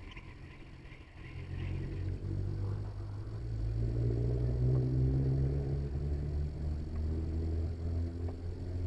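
A motor engine running with a low hum, growing louder about a second in and then holding steady.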